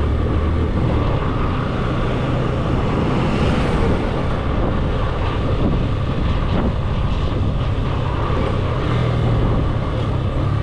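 Motorcycle engine running steadily, with wind and road noise on the microphone.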